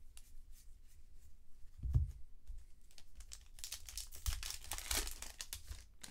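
Cardboard baseball trading cards being slid and flicked through the hands one at a time: light clicks and a papery swishing that grows strongest from about three and a half to five seconds in. A dull knock about two seconds in.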